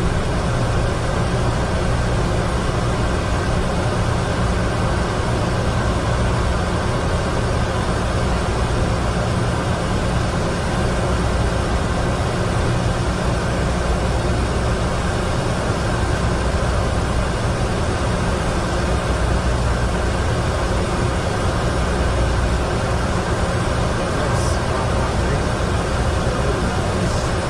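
Steady flight-deck noise of a Boeing 747-200 in the climb: a continuous rush with a low hum underneath.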